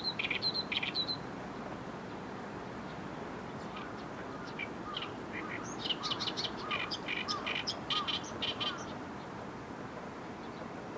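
Oriental reed warbler singing its loud, harsh chattering song of repeated rasping notes. One short run comes right at the start and a longer one follows in the middle, with a steady background hiss throughout.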